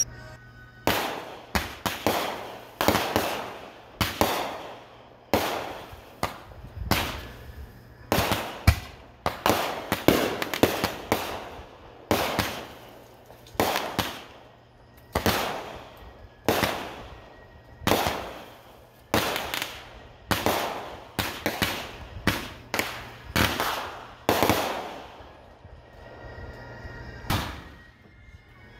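Aerial fireworks going off in a steady series of sharp bangs, about one or two a second, each trailing off after the blast. There is a short lull near the end.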